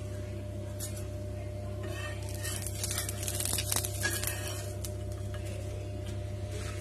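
Steel spatula scraping under a dosa on a flat tawa and folding it over, a run of short scrapes from about two to five seconds in, over a steady hum.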